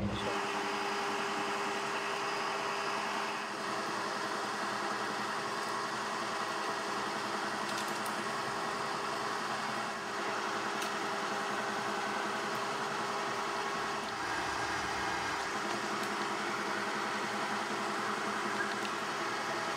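Milling machine running steadily with an even hum, its spindle feeding a cutter into a hole in a small metal part to cut a chamfer.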